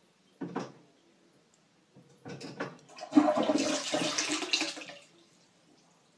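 Close-coupled toilet with a lever-handle cistern flushing: a short clunk about half a second in, then water rushing into the bowl for about three seconds, dying away around five seconds in.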